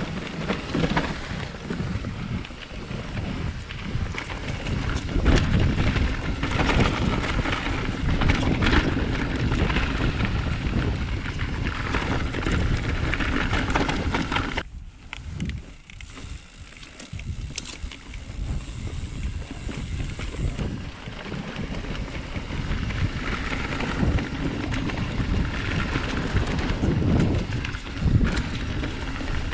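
Mountain bike descending a dirt forest trail. Tyre noise on dirt, with frequent knocks and rattles from the bike over bumps, and wind buffeting the microphone. It quietens for a couple of seconds about halfway through.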